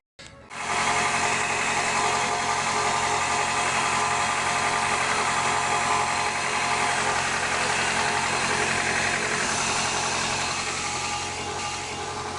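Chevrolet Montana Sport's four-cylinder engine idling steadily after a valve-train rebuild. Its freshly fitted hydraulic lifters, camshaft and rocker arms are running in, and the mechanic says the new lifters pumped up right away. The engine sound cuts in about half a second in.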